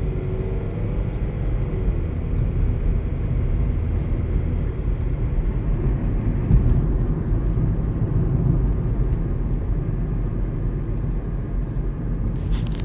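2012 Nissan Versa driving, with a pitched whine of several tones over the low rumble of engine and road that fades out about two seconds in, leaving the steady rumble. This is the noise the car makes under acceleration, which stops once the gas pedal is released. A few sharp clicks near the end.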